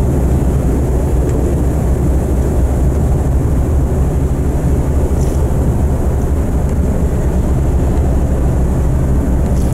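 Steady low rumble on the open deck of a moving ferry: the ship's engines running and wind on the microphone.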